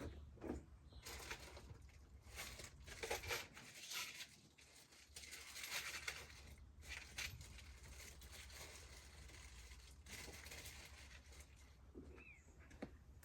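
Faint rustling and crinkling of small-parts packaging being handled in a few short spells, with a light click or two.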